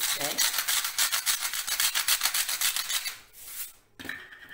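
Rapid, rhythmic rasping or scraping strokes from kitchen work, about ten a second, lasting about three seconds and then stopping. A faint steady high tone returns near the end.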